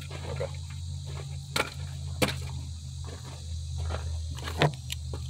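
Three short wooden knocks, the loudest a little past two seconds in, as a wooden board is worked off a newly fitted alternator. Under them run a steady low hum and a high insect drone.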